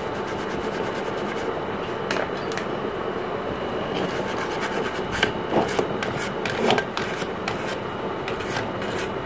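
A bristle brush scrubbing the surface of a circuit board around its main IC, with quick back-and-forth strokes that make a scratchy rubbing. The strokes come fast in the first second and are loudest a little past the middle.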